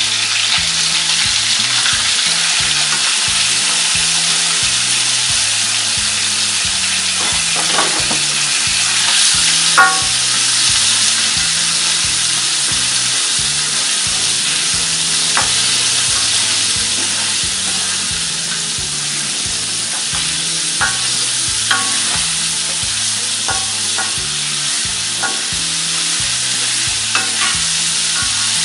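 Catfish pieces deep-frying in hot oil in a wok: a steady, loud sizzle, with now and then a short scrape or tap of a metal spatula against the pan as the fish is turned.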